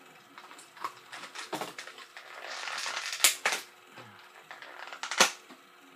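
Plastic toy packaging being pulled and torn open by hand: a run of irregular crinkles and clicks, a rustle in the middle, and two sharp cracks, one about three seconds in and one near the end.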